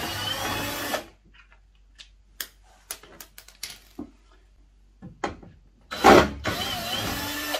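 Cordless drill-driver with a Torx 20 bit unscrewing the screws that hold a suitcase wheel, running in two short bursts with a slight rise in pitch. Between them come light clicks of the tool and screws being handled, and a loud knock about six seconds in.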